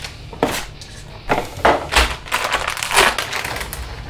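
Cardboard packaging and a plastic bag being handled and opened, with rustling and a string of sharp crunching noises; near the end the breaded chicken pieces are tipped out of the bag onto a baking tray.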